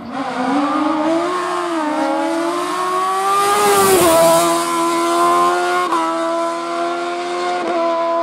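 Sports prototype race car accelerating hard uphill, its engine note rising as it approaches and dropping in pitch as it passes close about four seconds in. It then holds a steady high-revving note as it pulls away, with short breaks near six and seven and a half seconds.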